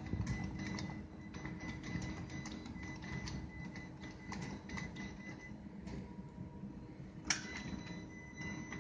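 Electric drive and leg actuators of a self-levelling wheeled work platform whirring as it crawls over a bump and levels itself, with irregular small clicks and one sharper click about seven seconds in.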